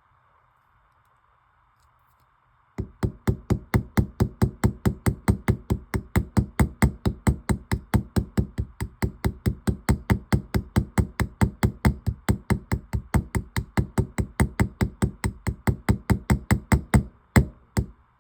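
Small hammer peening a straight razor's pivot pin to set the scales: rapid, even light metal taps, about five a second, starting about three seconds in and slowing to a few separate taps near the end.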